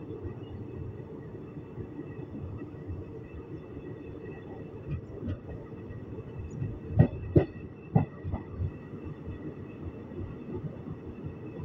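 Running noise inside an ICF passenger coach on the move: a steady low rumble of wheels on track, with a few sharp knocks close together about seven to eight seconds in.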